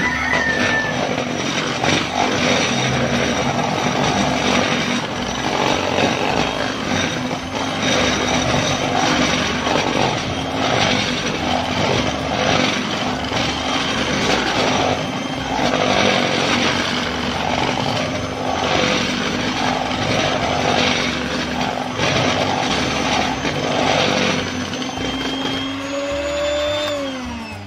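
Electric hand mixer running at medium speed, its beaters whisking in a bowl: a steady motor hum with a swishing that swells about once a second. Near the end the motor pitch slides down as it winds down.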